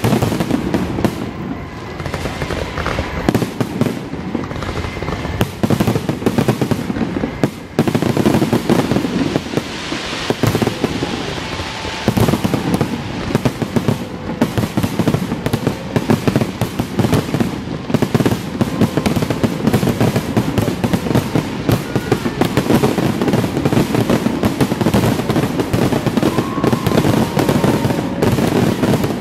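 Aerial fireworks shells bursting in a dense, continuous barrage, the booms and crackles overlapping with no break.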